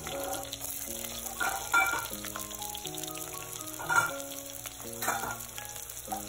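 Chopped onions sizzling and crackling in hot oil in a clay pot, with louder spattering bursts about two, four and five seconds in. Soft background music with stepping notes plays throughout.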